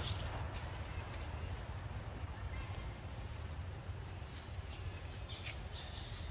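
Forest ambience: a steady high insect drone, with a low rumble underneath and a few short clicks.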